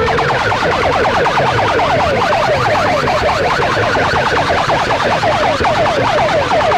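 Electronic siren effect played loud through a large horn loudspeaker sound system: a fast, even run of falling chirps, several a second.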